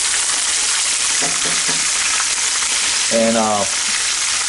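Gator meat frying in a pan over low heat: a steady sizzle.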